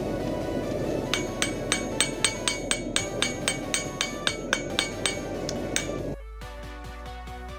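Hammer blows on sheet metal over an anvil, a steady run of ringing strikes about four a second, with a constant rushing noise underneath. Shortly after six seconds the hammering and noise cut off and background music takes over.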